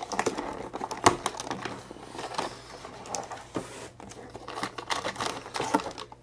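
Plastic toy pieces and their packaging being handled while a box is unpacked: irregular clicks and clacks of hard plastic mixed with crinkling, with one sharper knock about a second in.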